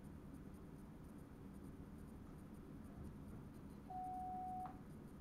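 Low steady rumble in the driver's cab of an NS Sprinter electric multiple unit, with a single steady electronic beep lasting just under a second about four seconds in.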